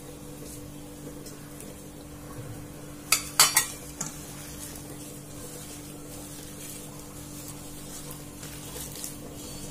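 Drumstick leaves and chopped onion being mixed by hand into wheat-flour dough in a stainless steel bowl, with three sharp clinks of steel dishware a little after three seconds in, over a steady low hum.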